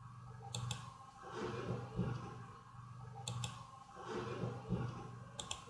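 Computer mouse clicks: a click pair about half a second in, another about three seconds in, and a quick run of clicks near the end. A steady low hum sits underneath.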